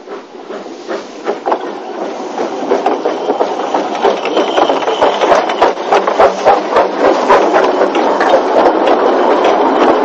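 Narrow-gauge Andrew Barclay 0-4-0 well tank steam locomotive pulling away: exhaust beats with hissing steam, soft at first and growing louder and quicker.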